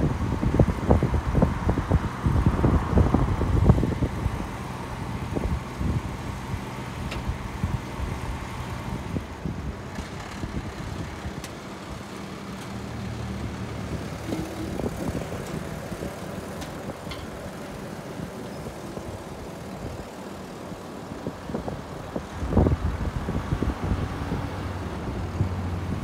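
Isuzu recovery truck's engine running, powering the hydraulics as its tilting bed, loaded with a small crawler bulldozer, is brought down level. A run of loud knocks and clanks in the first four seconds, then a steady low hum, with another knock about 22 seconds in.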